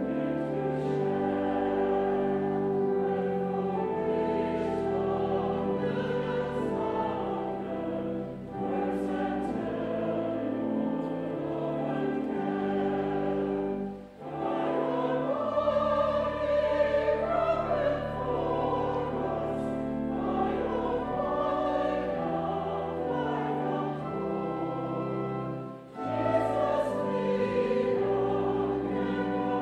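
Choir singing with instrumental accompaniment in long held phrases, with brief breaks between phrases about 8, 14 and 26 seconds in.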